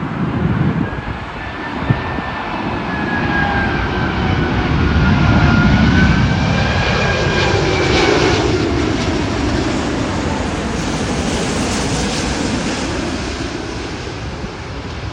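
Airbus A380 jet engines passing on its landing approach. The whine and rumble build to a peak about halfway through, the pitch slides down as it goes by, and then it fades.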